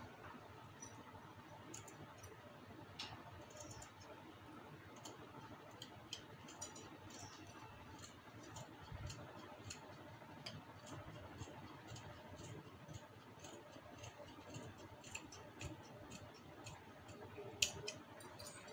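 Scissors cutting through fabric: a run of faint, quick snips as the blades close, with one louder snip near the end.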